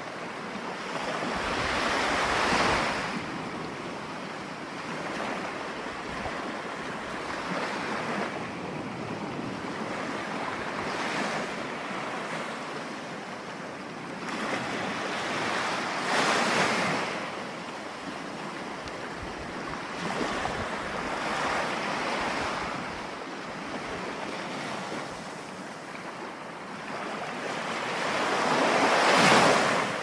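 Ocean waves breaking and washing up the shore, rising and falling in slow swells every few seconds. The biggest surges come about two seconds in, about halfway through, and just before the end.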